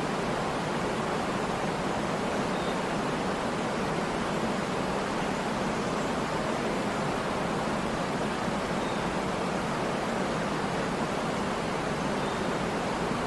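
Waterfall: water falling and splashing in a steady, even rush with no let-up.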